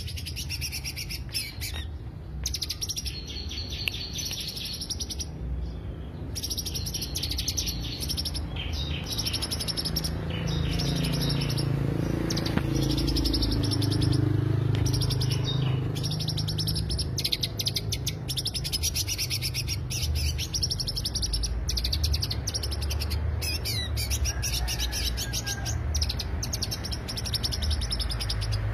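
Greater green leafbird (cucak hijau) singing in long, rapid chirping phrases broken by short pauses, over a steady low rumble.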